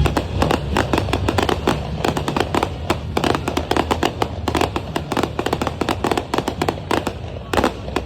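Fireworks going off in a rapid barrage of sharp bangs and crackles, many per second, with a few louder bangs near the end.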